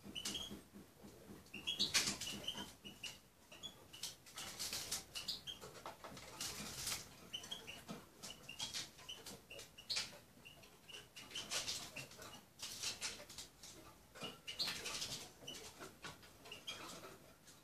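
Small finch pecking and rummaging in a glass bowl of chopped red food: irregular taps and short scratchy rustles, with faint short high chirps in the background.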